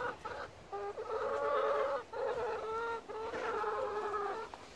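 Domestic hens calling in long, drawn-out notes, three in a row, each about a second long.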